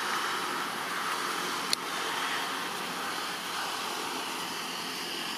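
Steady outdoor background hiss, with one sharp click just under two seconds in.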